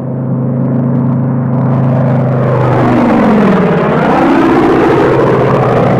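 P-47 Thunderbolt aircraft engine droning steadily, then its pitch sweeps down and back up again about halfway through, like a plane diving past and pulling away.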